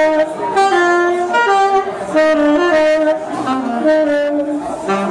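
Live jazz quartet playing: a saxophone leads with a melody of held notes over double bass, electric guitar and drums.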